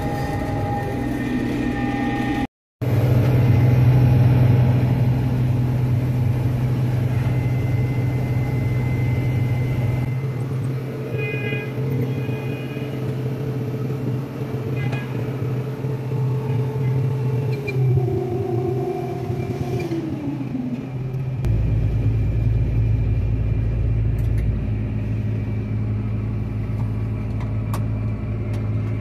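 Combine running steadily while harvesting corn, a continuous low machine drone. About two-thirds of the way through, a tone slides down in pitch and the drone shifts to a deeper hum.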